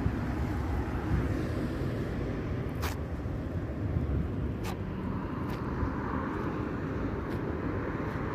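Steady low outdoor rumble with an even background hiss, broken by a few faint sharp ticks.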